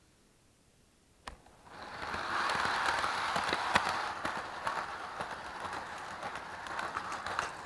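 Electric toy train running on its track, heard from a camera riding on one of its cars: a click about a second in, then the motor's whir builds up as the train gets going, with frequent clicks and rattles of the wheels on the track.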